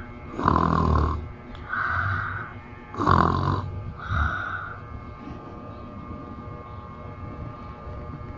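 A woman snoring: two loud, rattling snores about two and a half seconds apart, each followed by a shorter, higher breath. The snoring stops about five seconds in, leaving faint background music.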